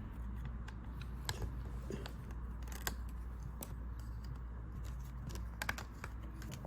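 A few scattered light clicks and taps over a low steady hum: small plastic parts being handled while a laptop is taken apart.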